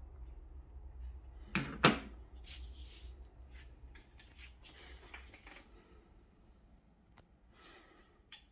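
Clicks and knocks of hi-fi equipment being operated by hand, with a low hum underneath. Two sharp clicks close together a little under two seconds in are the loudest, followed by softer scattered clicks and rustles.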